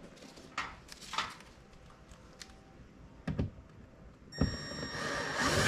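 Small clicks and knocks from fitting the last screw beneath the interior door handle trim. About four and a half seconds in comes a sharper thunk, then a louder steady sound that builds toward the end.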